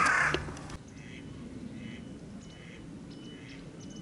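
Crow cawing, its last loud caw cutting off under a second in, followed by fainter short bird calls repeating about once a second.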